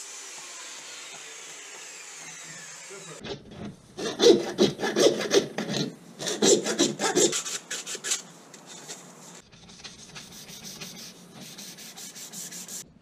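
Short pieces of PVC pipe being deburred by hand: a knife blade and sandpaper scrape the cut edges in rapid strokes, coming in bursts that are loudest in the middle and softer toward the end. A steady hiss runs for the first three seconds.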